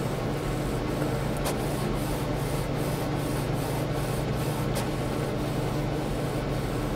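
HP Officejet 4620 inkjet printer printing a page: a steady mechanical whirring with an even back-and-forth rhythm of about three to four strokes a second. Two sharp clicks come through, about a second and a half in and just before five seconds in.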